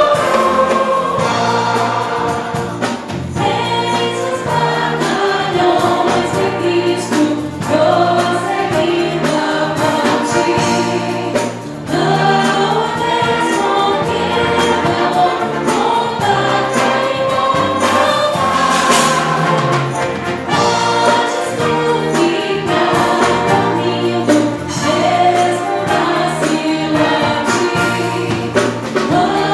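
Choir singing gospel music, with instruments accompanying.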